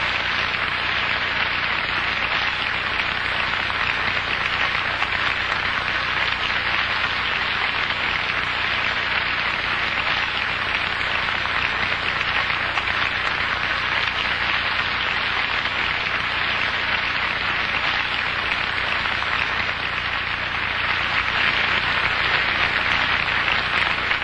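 Television studio audience applauding steadily for a long stretch, growing a little louder near the end.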